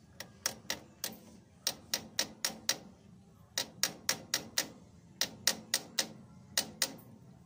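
Light, sharp taps of a wrench used as a hammer on a plastic tube, driving a new kick-starter oil seal into its bore in the engine side cover. The taps come in quick runs of two to five, about four a second, with short pauses between runs.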